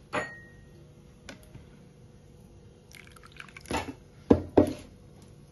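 Wire whisk stirring a wet semolina, curd and water batter in a plastic bowl: squelching, with a few short, sharp knocks, the loudest three a little past the middle.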